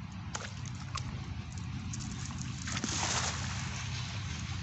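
A cast net thrown over shallow water, landing with a rushing splash about three seconds in, after a few small splashes and drips. A steady low hum runs underneath.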